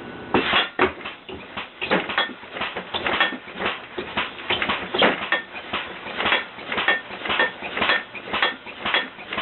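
A home-built, computer-controlled, air-compressor-powered alarm rig going off: a rapid, irregular clatter of metallic banging, several hits a second with a short ring after many of them, starting suddenly just after the start.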